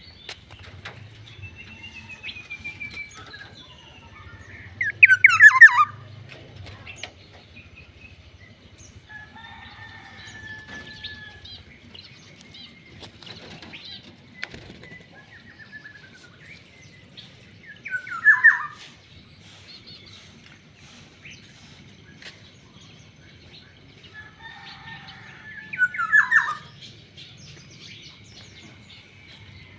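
Black-naped oriole (kepodang) calling: three loud, harsh calls that slide down in pitch, about five seconds in, near the middle and again near the end, with softer whistled notes between them.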